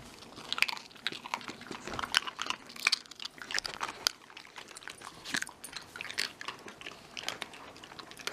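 Miniature schnauzer crunching and chewing a crisp dehydrated turkey-and-carrot dog treat: irregular sharp crunches, one after another.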